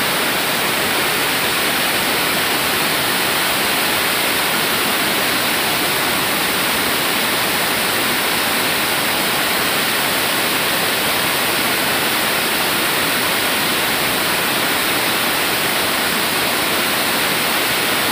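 Steady rush of river water pouring over a sloping weir in a broad sheet and churning at its foot, a loud, even roar of falling water with no breaks.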